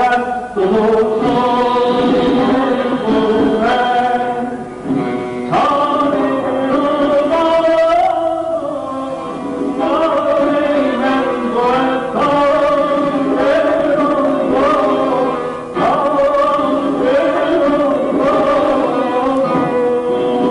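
A male voice sings Persian classical avaz in dastgah Shur, in long wavering phrases with ornamented turns, and instruments accompany it. The phrases break briefly about five seconds in and again near sixteen seconds.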